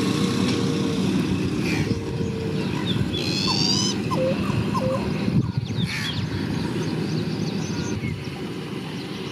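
Pheasant-tailed jacanas calling in a wetland: scattered short gliding notes, with a quick run of rising notes about three seconds in, over steady low background noise.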